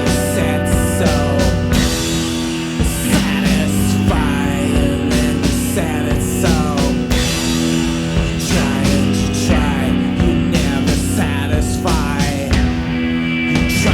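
Indie rock song: drums, bass and distorted electric guitars playing steadily.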